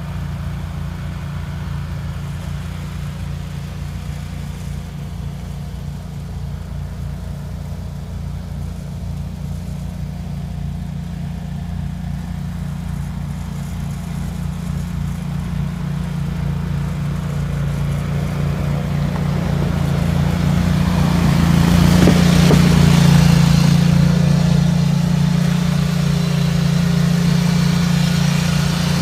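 Cub Cadet garden tractor's engine running steadily under load, driving its front-mounted snow thrower. It grows louder about two-thirds of the way through as the tractor comes close, with a brief rushing hiss at the loudest point.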